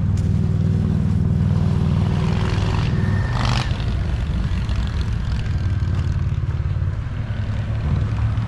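Steady low engine drone from a motor vehicle, with a short rustling noise about three and a half seconds in.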